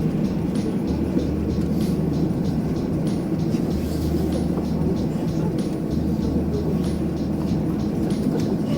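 Road noise inside a moving car's cabin, a steady low rumble, with music playing over it to an even beat.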